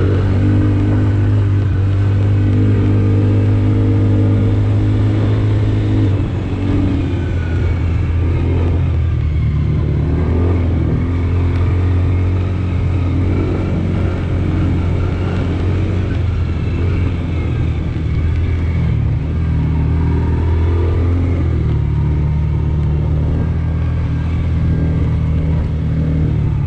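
Motor vehicle engine running steadily under load, dropping in pitch about six seconds in and rising again near the end.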